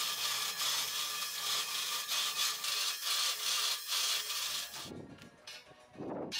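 A homemade electric-motor saw's spinning disc cutting through square steel tube: a steady, harsh, pulsing grinding that stops a little before the end.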